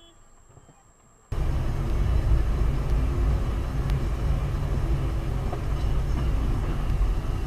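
Dashcam recording of a car on the move: steady low rumble of engine and road noise, starting abruptly about a second in after a near-quiet moment.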